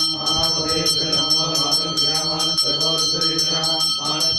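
A temple bell rung rapidly and continuously, about five strokes a second, its tones ringing on, over the chanting of mantras for the abhishekam.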